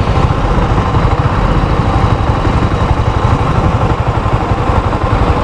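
Small motorcycle engine running at low speed in city traffic: a steady low rumble with hiss above it.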